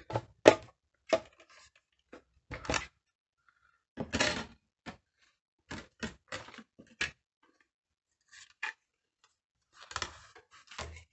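Clear acrylic cutting plates, a cutting die and a small die-cutting machine being handled, shifted and set down on a tabletop. The sound is a dozen or so short plastic clicks and knocks at irregular intervals, with quiet gaps between them.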